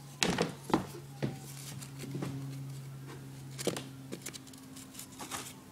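Cardboard toilet-paper-roll rings being handled and slotted into one another, giving a few light taps and rustles, over a steady low hum.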